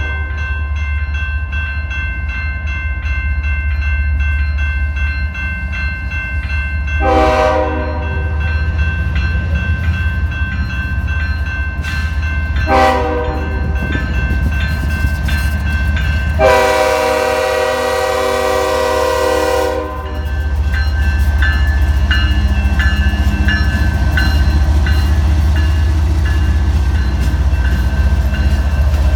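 Diesel train locomotive rumbling steadily as it moves, with its multi-chime horn sounding three times: two short blasts, then one long blast of about three seconds.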